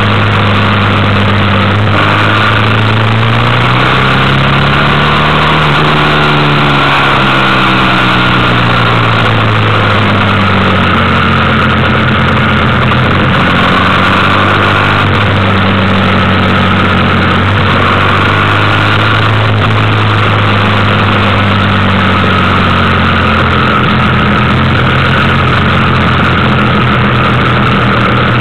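Motorcycle engine running under way, with a steady rush of wind. The engine note rises and falls a few times as the throttle changes, most clearly a few seconds in.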